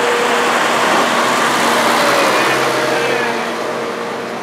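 A New Holland farm tractor's diesel engine running as it passes close by, a steady hum over a broad rumble. It is loudest about two seconds in and fades a little near the end.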